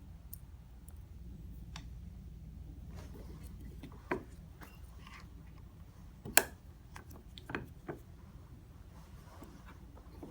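A few light clicks and taps of small watchmaking tools and parts on the bench, the sharpest about six seconds in, over a steady low hum.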